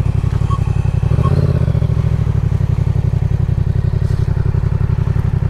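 Yamaha motorcycle engine running at low revs with a fast, even pulsing beat as the bike rolls slowly along a dirt track.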